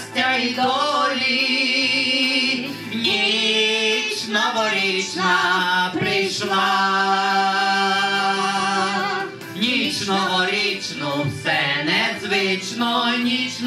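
Male vocal trio singing, mostly long held notes with vibrato, between lines of a song.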